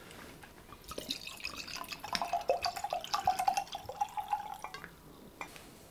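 Wine being poured from a bottle into a glass: a gurgling trickle with a pouring tone that starts about a second in and stops shortly before the end.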